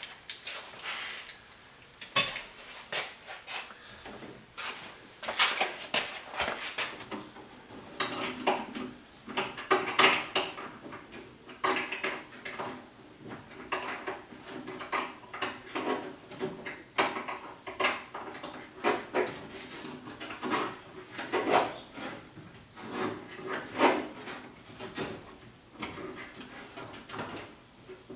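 Irregular metallic clicks, taps and short scrapes of a 7/16 wrench working on the door-handle mounting bolts inside a 1971 Chevy C20's door, some clinks ringing briefly.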